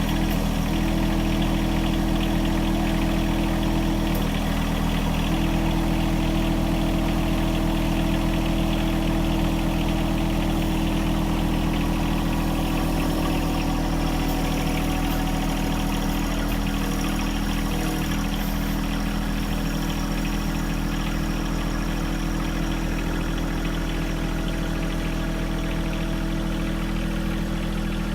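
John Deere 1023E compact tractor's three-cylinder diesel engine running steadily at low revs, its loader-backhoe carried across a log bridge under load test.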